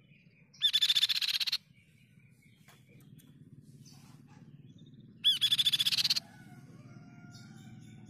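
Crescent-chested babbler (tepus pipi perak) singing: two loud, rapid trills of about a second each, the first about half a second in and the second about five seconds in, over a faint low hum.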